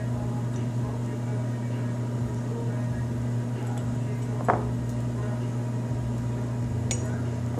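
A steady low hum, like a fan or an appliance running, with a short knock about halfway through and a sharp click near the end.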